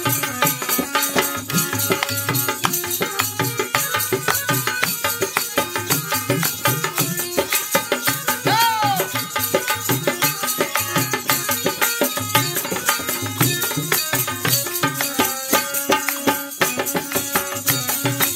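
Instrumental intro of a North Indian folk song: a dholak drum playing a steady rhythm under fast, high percussion strokes and a melody line, with one short sliding note about eight and a half seconds in.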